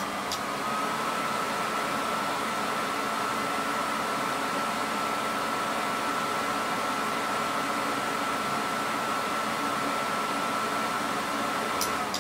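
Extraction fan of a FAM100 fume absorbing module running steadily with a whine, which steps up slightly in pitch just after a click at the start. Near the end another click comes and the whine begins to fall as the fan is switched off.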